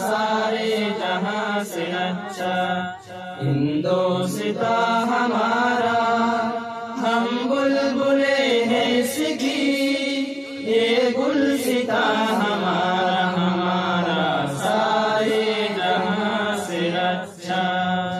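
Chant-like vocal singing: a slow melody of long, wavering held notes over a steady low drone.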